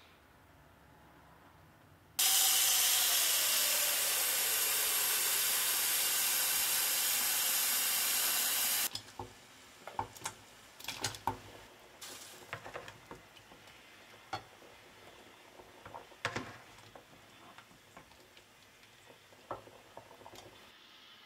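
A loud steady hiss for about seven seconds that starts and stops abruptly, followed by scattered clicks and knocks of cookware as chunks of raw potato are tipped from a ceramic plate into a pot of boiling water and handled with a spatula.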